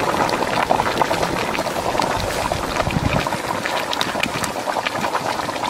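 Thick fish curry bubbling at a boil in a large metal pot, a steady hiss full of small irregular pops and gurgles. A brief low rumble comes about two seconds in.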